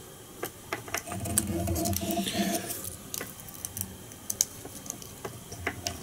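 Light clicks and ticks from fly-tying work: monofilament line being wound and pressed over the nymph's film body to form ribs. About one to three seconds in, a louder low murmur of unclear source sounds for about two seconds.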